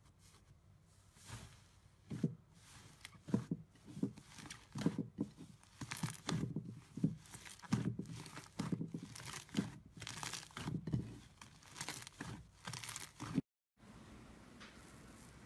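Thick, fluffy slime being squeezed and pressed by hand, giving irregular crinkly, crackling and tearing sounds about twice a second. The sounds break off suddenly near the end.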